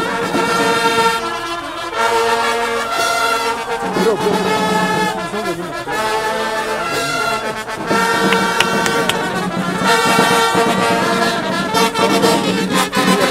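Slow music of long held chords, the notes changing every second or two.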